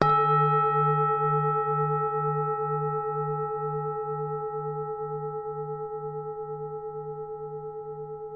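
Temple bell struck once, then ringing on with a slow fade. Its lowest note pulses in a slow wah-wah about twice a second beneath several clear higher tones.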